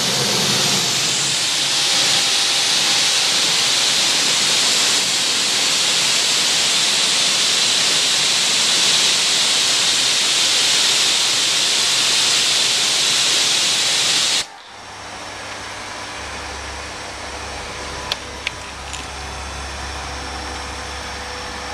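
Hose nozzle spraying a steady jet of water onto a car's paintwork, a loud even hiss that cuts off abruptly about fourteen seconds in. After it comes a much quieter low hum with a few sharp clicks.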